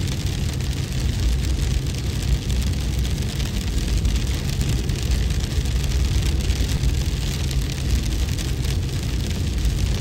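Steady wind-and-hail ambience: a deep continuous rumble with a dense hiss above it.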